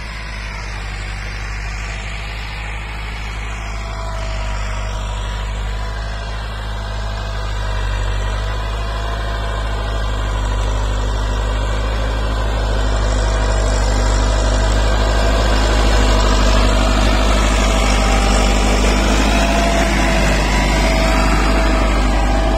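Massey Ferguson 385 tractor's diesel engine running steadily under load at about 1600–1700 rpm while pulling a cultivator through the soil. It grows steadily louder as the tractor comes closer.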